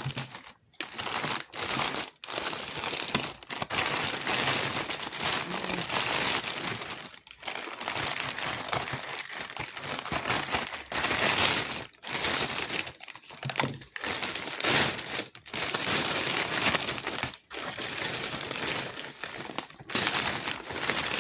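Packaging crinkling and rustling as it is handled and unwrapped by hand, in continuous spells broken by short pauses every second or two.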